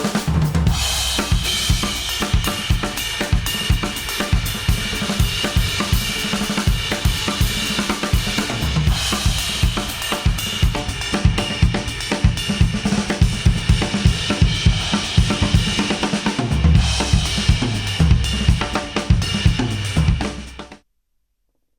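Music with a full drum kit (kick, snare, hi-hat and cymbals) playing back through Apple AirPods earbuds, recorded at an artificial ear. It cuts off abruptly near the end.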